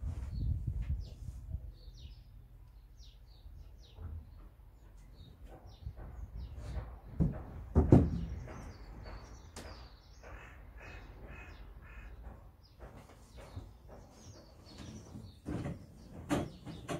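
Birds calling outdoors throughout, with a quick run of about five calls around the middle, over knocks and bumps of someone moving about up inside a small loft hatch. The loudest bump comes about eight seconds in, another near the end.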